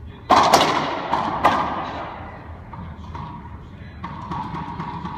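A racquetball being hit: a few loud, sharp smacks of the ball off racquet and walls, ringing around the enclosed court, followed by softer taps.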